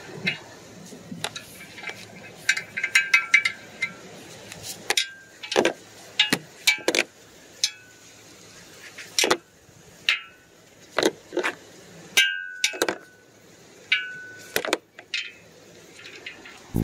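Hard objects knocking and clinking: an irregular series of sharp knocks, several with a brief ringing tone, with a tight cluster of clinks about three seconds in.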